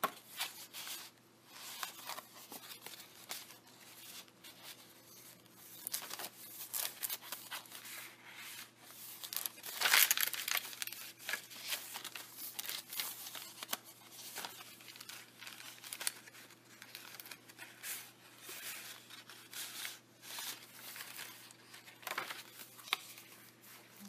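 Paper pages of a handmade junk journal being turned and handled, with irregular rustling and crinkling. The loudest rustle comes about ten seconds in.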